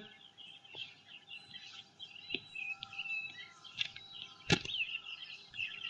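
Birds chirping softly in the background, with a few short knocks, the loudest a single thud about four and a half seconds in.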